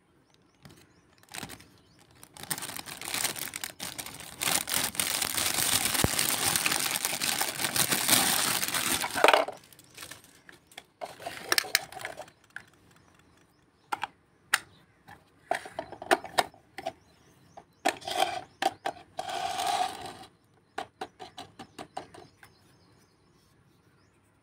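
Clear plastic wrapping crinkling for several seconds as a miniature plastic toy washing machine is unwrapped, stopping about nine seconds in. Then scattered clicks and knocks of small plastic toy pieces being handled and set down, with a few short bursts of rustling.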